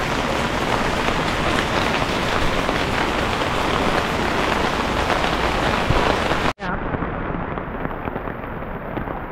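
Steady rain, with close drops pattering on an umbrella. About six and a half seconds in, it cuts abruptly to a quieter, duller rush of rain and water.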